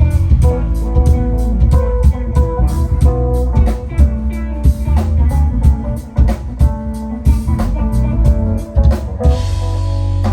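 Live band playing an instrumental groove: guitar and bass guitar over a drum kit keeping a steady beat.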